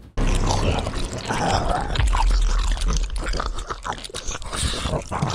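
Wet chewing and crunching sounds, a run of irregular crackles and clicks over a low rumble.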